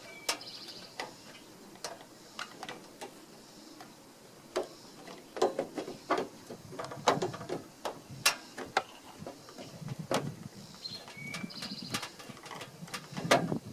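A plastic running-light housing being worked back into place on a pickup's front end by hand: scattered clicks, taps and knocks of plastic against the metal mount, thickest in the middle, with a sharp knock near the end.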